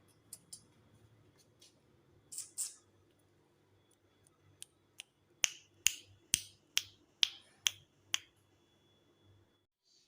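Pet budgerigars making short, sharp clicking chirps: a few scattered ones, then a quick run of about eight, roughly two a second. A faint low hum runs underneath and cuts off near the end.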